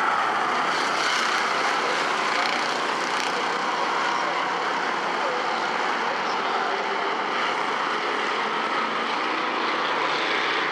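A field of Bomber-class stock cars racing past together, their engines merging into one continuous, steady drone.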